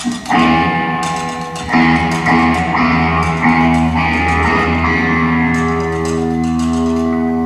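Electric guitar striking several chords in the first few seconds and then letting one ring, over a bass guitar holding a low note, as a rock band plays at its sound check.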